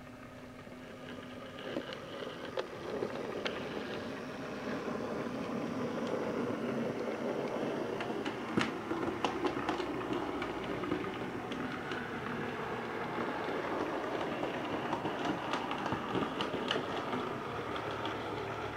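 Model railway train running along the track. It grows louder over the first few seconds, with scattered sharp clicks of wheels passing over rail joints.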